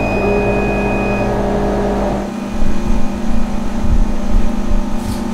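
80 W CO2 laser cutter switched on and humming steadily. A high steady tone sounds for about the first second, and after about two seconds the hum is joined by an uneven low rumble.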